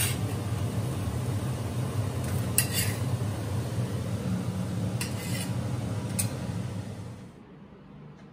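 Paratha frying in ghee on a hot iron tawa: a steady sizzle over a low hum, with four sharp clicks and scrapes of a steel spatula against the pan. The sound drops away sharply about seven seconds in.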